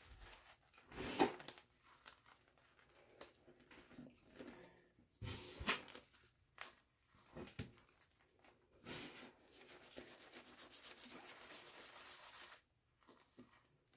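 Hands rubbing and squeezing a pile of loose gym chalk and holi powder, giving irregular soft swishes and crunches as clumps crumble. Near the end comes a fast run of rubbing strokes, about eight a second, that stops suddenly.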